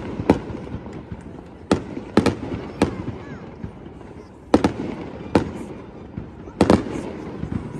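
Aerial fireworks shells bursting in sharp bangs at irregular intervals, about nine in all, some coming in quick pairs.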